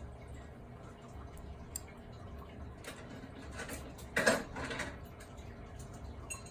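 Small clicks and handling noise of an eyeglass frame and a lens clock being turned and set against the lens, with one brief louder rustle about four seconds in, over a low room hum.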